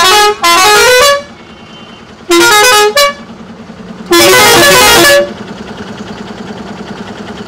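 Ashok Leyland truck's musical air horn sounding three loud blasts, each a quick run of stepped notes like a short tune. The third blast is the longest.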